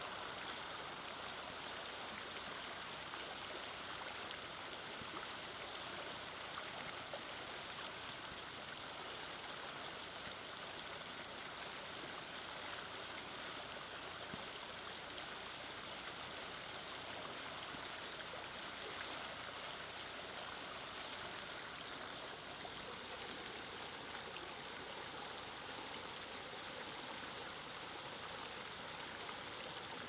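Shallow stream flowing over rocks: a steady rush of running water.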